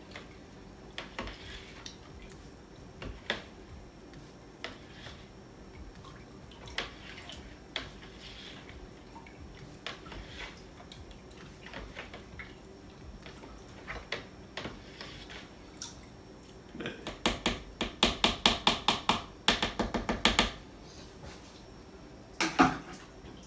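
A spatula stirring mead must (honey water and cherries) in a plastic bucket: scattered light knocks and scrapes against the bucket, then about three seconds of rapid, even stirring strokes, roughly six a second, near the end. A single knock follows shortly after.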